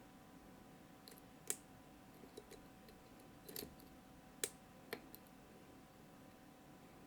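Faint, sharp clicks of a pick working the pins inside a Mottura CP6 dimple lock: about eight irregular clicks, the two loudest about a second and a half in and about four and a half seconds in.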